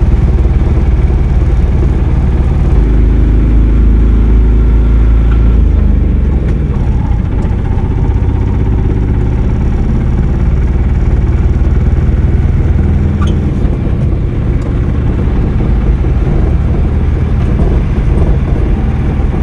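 Vehicle engine running steadily under way, with road noise. The engine note changes about three seconds in and again about six seconds in.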